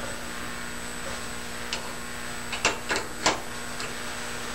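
Steady machine hum from a CNC tool and cutter grinder with a thin high-pitched tone, and a handful of sharp mechanical clicks and knocks from the machine in the middle of the stretch.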